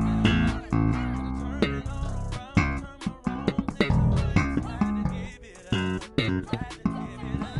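Fodera Emperor Standard five-string electric bass being played: a busy run of sharply attacked, funky notes several per second, with strong low notes and bright percussive attacks.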